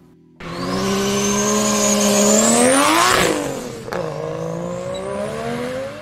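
A car engine revving as it speeds past. Its pitch climbs as it approaches, drops sharply about three seconds in as it passes, then runs on lower and fades.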